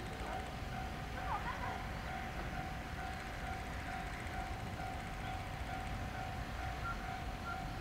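JR 213 series electric train standing at the platform, giving off one steady, unbroken tone from its running electrical equipment over a low outdoor rumble.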